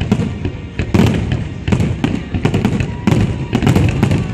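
Aerial firework shells bursting in a dense, rapid barrage: overlapping sharp bangs about three a second over a continuous low rumble.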